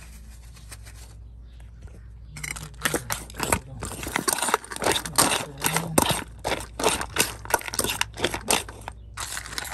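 A metal fork stirring dry kibble and ground beef in a stainless steel bowl: quick, irregular scraping and clinking that starts about two seconds in, with a short break near the end.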